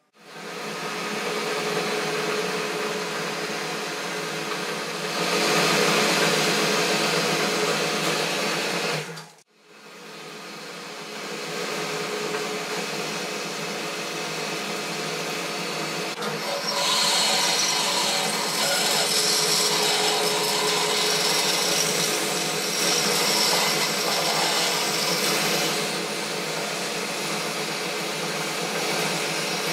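Boxford lathe running while a twist drill fed from the tailstock drills into a bar spinning in the chuck, with a steady machine hum. The sound drops out briefly about nine seconds in and builds up again, and the drilling gets louder and hissier in the second half as the swarf curls off.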